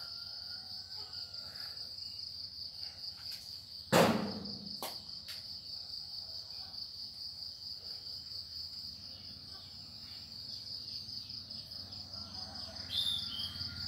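Crickets chirping in a steady, high-pitched trill, with one sharp knock about four seconds in and a few faint clicks.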